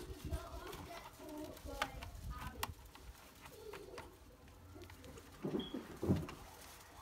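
A dove cooing, a few low calls in the second half, the loudest about six seconds in. Sharp plastic clicks sound earlier as the steam iron's handle cover is pried apart.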